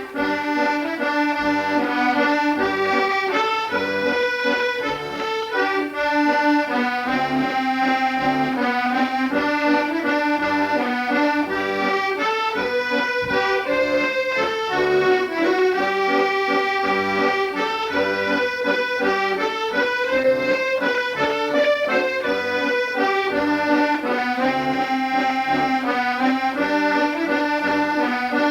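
Accordion playing a traditional-style tune, a continuous melody over sustained chords.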